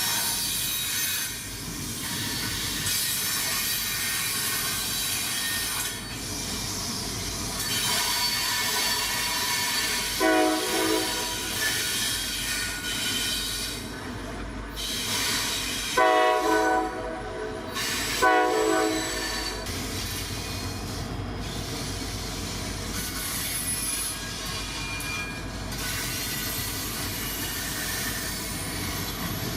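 A train passing with its steel wheels squealing on the rails. Its horn sounds three short times in the middle of the passage.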